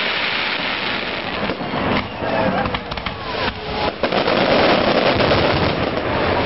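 Aerial fireworks bursting: a few sharp bangs over dense crackling, growing louder about two-thirds of the way through.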